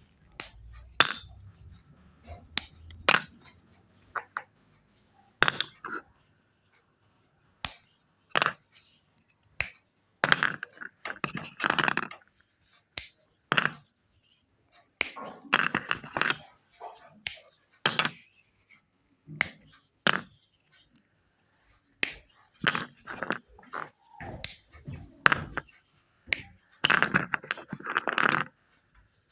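Wet chalk crunching and snapping as it is broken up: irregular sharp cracks with pauses between them, and a few short runs of dense crackling.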